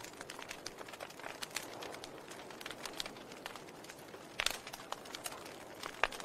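Wood fire burning in a fireplace: logs crackling with irregular small pops over a low steady hiss, with two louder pops, one about four and a half seconds in and one near the end.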